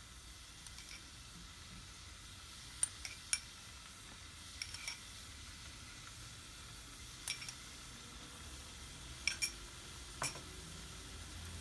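Sliced mushrooms cooking in a little water in a pot with a faint steady sizzle, while a utensil stirs them and clinks against the pot several times.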